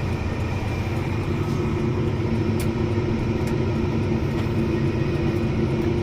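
Heavy farm vehicle engine running steadily: a low, even drone with a constant hum.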